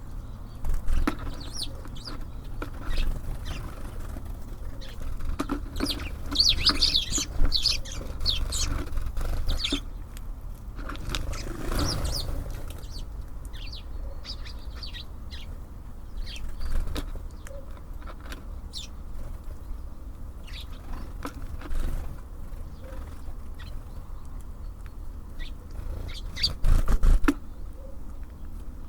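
Small songbirds at a bird feeder, tits and sparrows, giving short high chirps and calls, with wing flutters and sharp taps and knocks as they land and peck. A steady low rumble runs underneath.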